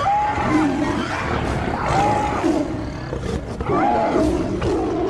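African buffalo calf bawling in distress, three drawn-out calls about two seconds apart, while lions attacking it growl underneath.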